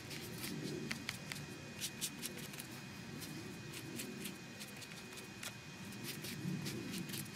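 Foam ink-blending pad being dabbed and rubbed over cardstock: a soft scuffing with scattered light ticks and taps as the pad meets the card.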